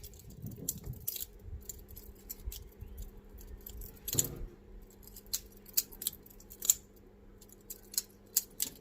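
Boker training balisong (fan knife) being flipped and rolled in the hand: its handles and blade clicking and clattering against each other in irregular sharp clicks, with a few louder clacks as the handles swing shut or are caught.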